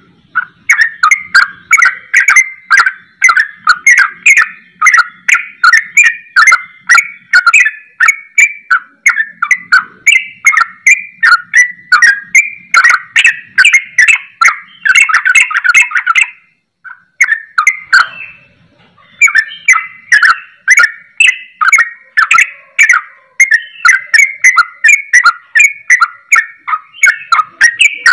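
Yellow-vented bulbul (trucukan) singing a rapid, unbroken run of short chirping notes, about two to three a second, in the 'ropel' style keepers liken to a straw-headed bulbul's (cucak rowo) song. The run breaks for a couple of seconds about two-thirds through, then resumes.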